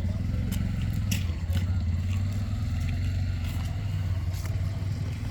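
An engine running steadily at a low, even pitch, with a few sharp clicks and taps over it.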